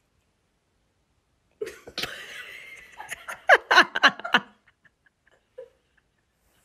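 Laughter: a breathy onset, then a quick run of loud laugh bursts that stops about halfway through.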